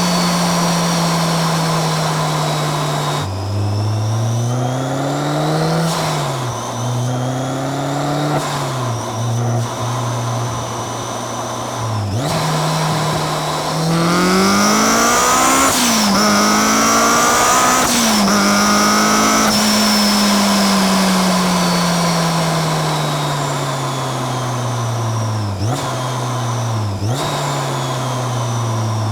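Supercharged Honda S2000's 2.2-litre four-cylinder engine revving up and down through several gear changes, with a long steady drop in revs in the second half as the car slows. A high supercharger whine rises and falls with the revs.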